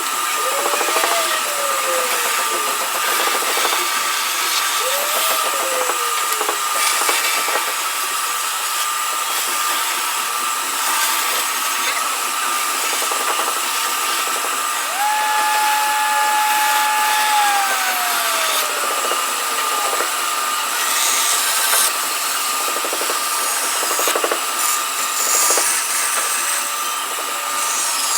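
A power woodworking machine running on wood, with a steady motor whine under continuous cutting and rubbing noise. A few times a lower tone rises and then slides down: twice briefly near the start, and once held longer about halfway through.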